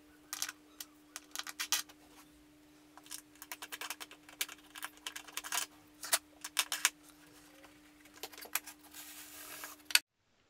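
MDF knobs with M8 threaded inserts being handled and screwed onto the featherboard's bolts: irregular light clicks and rattles of wood and metal parts, with a short scraping hiss near the end. A faint steady hum sits behind, and the sound cuts off abruptly about a second before the end.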